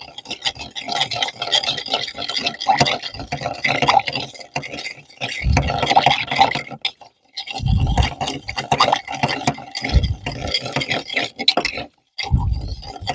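Bar spoon stirring ice in a stainless-steel mixing tin: a fast, continuous clinking and scraping of ice against metal, with short breaks about seven and twelve seconds in and a few low bumps along the way.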